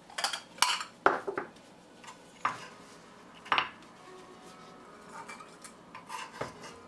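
A chef's knife scraping and knocking on a wooden cutting board as chopped pearl onions are pushed into a small ceramic bowl: a scatter of short clicks and scrapes, the loudest in the first few seconds, softer ones later.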